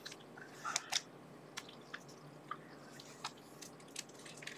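Roll of black tape being unwound and wrapped around a cable, giving faint, irregular crackles and ticks as it peels off the reel.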